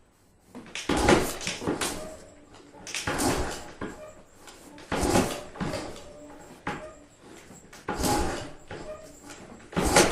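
Five kick-start attempts on a 1981 Honda XL500S single-cylinder engine, one about every two seconds: each kick gives a short clatter as the engine turns over, and it never fires because the fuel valve is shut off.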